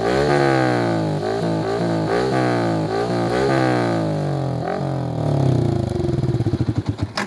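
Yamaha MT-15's single-cylinder engine, heard through an Akrapovič aftermarket exhaust, being blipped repeatedly, its revs falling away after each blip. It settles into a pulsing idle near the end, then cuts off suddenly.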